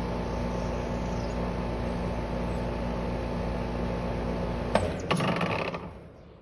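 Trane 4TWR4 5-ton heat pump outdoor unit shutting down. A steady hum carries on, then nearly five seconds in come two sharp clicks and a short mechanical rattle before it dies away. This is the weird shutdown noise, which the owner says he has heard from other units too.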